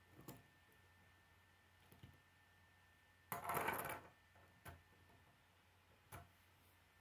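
Plastic K'nex pieces being handled and fitted together: a few single sharp clicks, and one louder clattering rattle lasting under a second, about three and a half seconds in.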